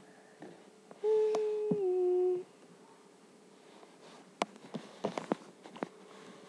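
A person humming one held note for about a second and a half, dropping slightly in pitch near the end, followed by a few faint clicks from handling of the phone.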